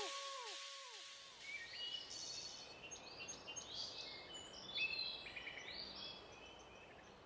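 Faint birdsong: several small birds chirping in short, quick calls. The last echoing music notes die away in the first second.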